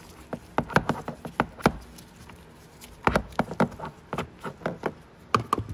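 Irregular clicks and taps of a screwdriver and screws against a car's plastic interior trim as the trim screws are taken out, in two short flurries with a quieter pause between them.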